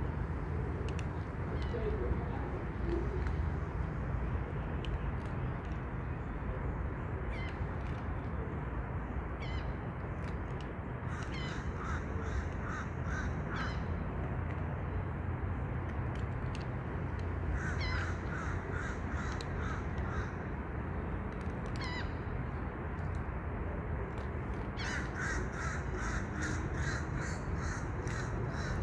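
A bird calling outdoors in three runs of rapid, evenly repeated harsh notes, each run two to three seconds long, over a steady low rumble and a few faint clicks.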